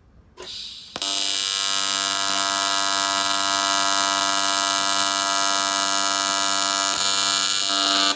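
AC TIG welding arc on aluminum: a loud, steady buzz that strikes about a second in and cuts off abruptly near the end. It ends as the welder's wrist slips and the tungsten dips into the weld pool, contaminating it.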